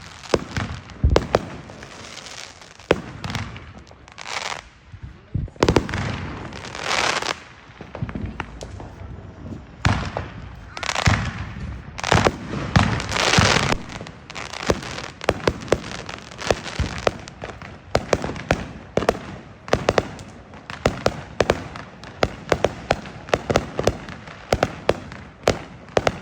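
Consumer fireworks going off in a neighborhood: repeated bangs and longer crackling bursts, turning into a rapid run of sharp pops in the second half.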